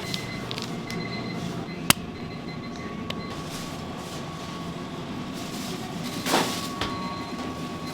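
Steady machine hum with a faint constant tone, broken by a sharp click about two seconds in and a louder knock about six seconds in.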